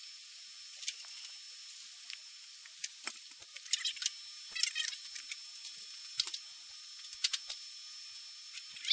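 Irregular light clicks and clanks of metal parts being handled as the locks on a woodworking machine are adjusted and tightened, over a faint steady high tone.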